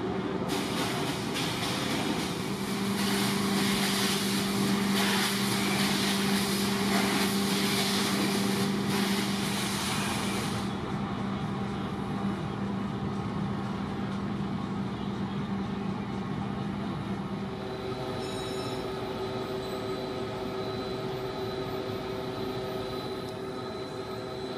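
A steady, low mechanical hum, with a loud hiss over it for the first ten seconds or so that cuts off suddenly; the hum's tone shifts about two-thirds of the way through.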